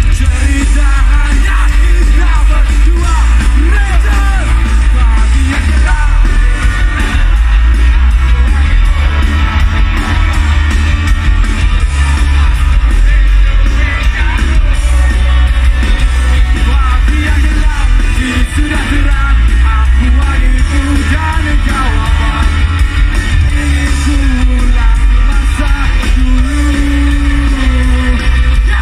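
Live rock band playing a song with a singer, loud throughout, with heavy bass.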